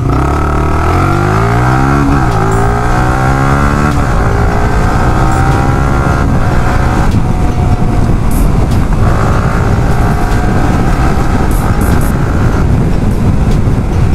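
Yamaha R15's single-cylinder engine heard from the rider's seat as the bike pulls away: the revs climb, drop at a gear change about two seconds in, climb again, then settle into steady cruising. Wind rumble on the microphone runs underneath.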